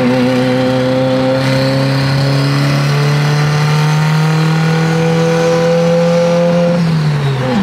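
Turbocharged 2-litre 4G63 engine of a built Mitsubishi Evo 8, heard from inside the cabin at freeway speed: a steady drone that climbs slowly in pitch as the car gains speed, then drops away near the end.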